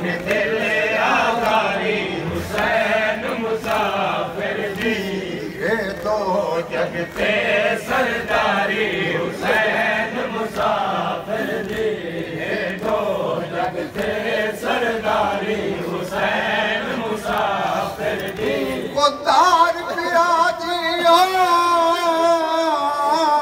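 Crowd of men chanting a nauha (Shia lament) together, unaccompanied. About nineteen seconds in, a single male voice comes to the fore, singing a wavering, drawn-out line.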